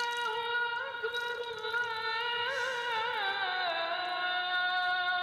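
Background song: a high voice sings long held notes with wavering ornaments, with little or no accompaniment. The melody steps down to a lower held note about three and a half seconds in.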